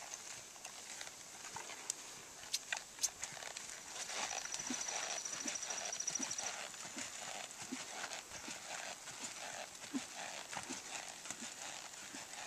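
Hoofbeats of a ridden Quarter Horse gelding on arena sand: soft, even footfalls about two a second, starting a few seconds in as the horse moves off from a standstill.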